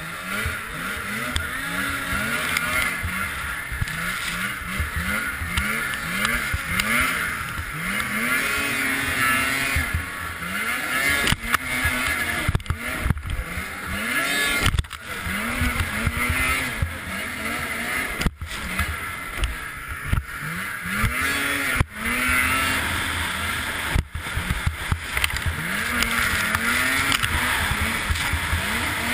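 Race snowmobile engine revving up and falling back over and over as the throttle is worked through the bumps and corners of a snowcross track, with a steady rush of wind and track noise on the helmet camera's microphone. The sound drops out briefly a few times.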